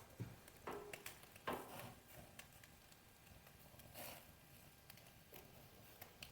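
Faint, scattered crackles and pops from glowing charcoal embers in a wood-burning stove with shashlik grilling over them, a few louder pops in the first two seconds.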